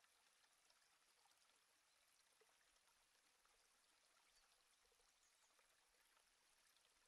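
Near silence: a very faint, even hiss with tiny scattered crackles.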